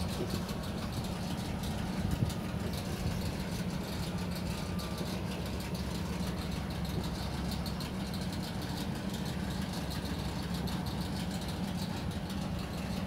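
A steady low engine hum, like an engine idling, with a brief louder bump about two seconds in.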